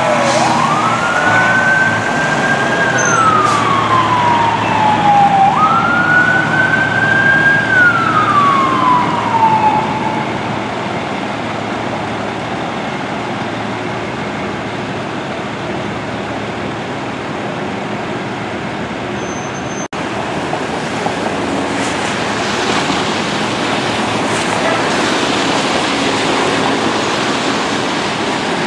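Fire engine siren winding up to a high held pitch and then sliding slowly down, twice in a row, over running diesel engines. The siren then stops, leaving steady engine and traffic noise on wet pavement.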